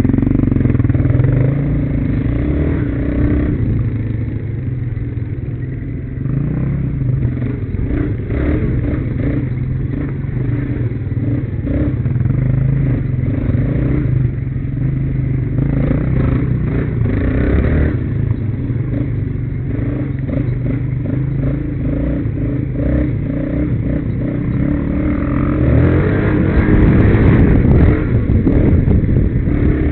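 Sport quad (ATV) engine running and revving over a rough dirt trail, picked up by a camera mounted on the quad, with clatter and knocks from the bumpy ride. It gets louder with harder throttle about four seconds from the end.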